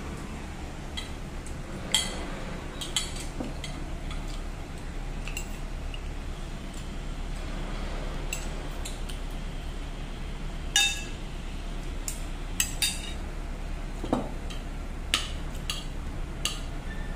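Metal spoon and fork clinking and tapping against a ceramic plate during eating, in scattered sharp clinks, the loudest about eleven seconds in.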